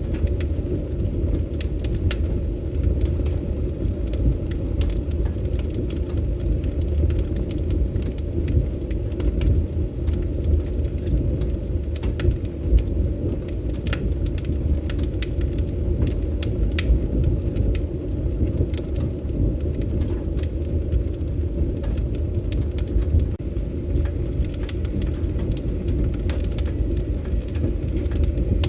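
Wood fire crackling: frequent sharp pops and snaps, several a second, over a steady low rumble of the burning fire.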